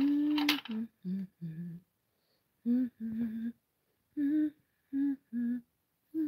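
A person humming a string of short, separate notes, about ten in all, each well under a second, with silent pauses between them; the first note is the longest.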